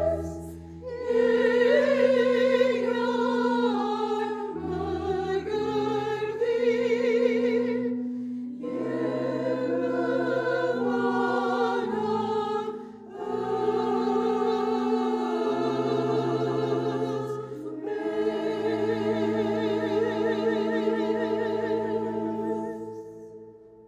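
Armenian Apostolic church choir of women's voices singing a hymn of Christ's baptism for Armenian Christmas. The melody moves in phrases with short breaks above sustained low held notes, and the last chord dies away near the end.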